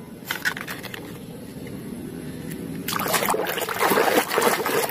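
A plastic toy knocks lightly a couple of times as it is set into a plastic basket, then about three seconds in a hand starts sloshing and squelching through thick muddy water, loud and crackling.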